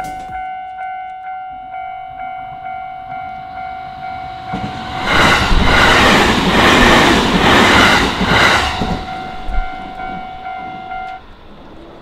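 Japanese level-crossing warning bell dinging in a steady repeating rhythm. About five seconds in, an electric commuter train passes the crossing with a loud rush and wheels clattering over the rail joints, fading by about nine seconds. The bell stops about eleven seconds in as the gates rise.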